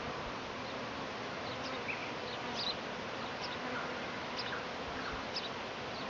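A swarm of honeybees buzzing: a steady hum of many bees clustered on a bush after swarming.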